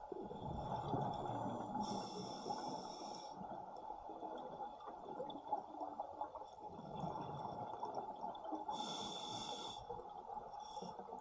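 Scuba regulator breathing heard underwater, close to the diver. Inhalations hiss through the regulator about two seconds and nine seconds in, over a steady bubbling rumble from exhaled air and the water.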